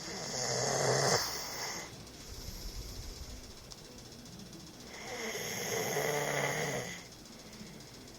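A man snoring in his sleep: two long snores about five seconds apart, each lasting about two seconds, with quieter breathing between.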